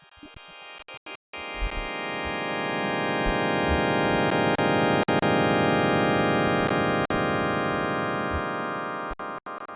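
Synthesized sonification tones: a dense cluster of many steady pitches that swells in about a second and a half in, holds, then fades near the end. A few brief cut-outs and soft low thuds run underneath.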